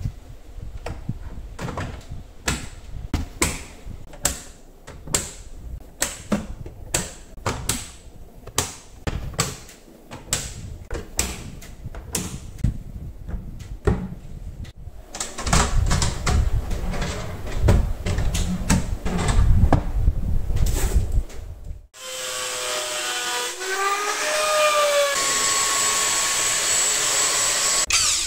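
Cabinet doors and drawers being fitted onto a wooden sideboard: a long run of irregular clicks and knocks from the hinges, slides and panels. About 22 seconds in, a cordless drill starts, its whine rising and falling with the trigger, then running steadily as it drills into the wall.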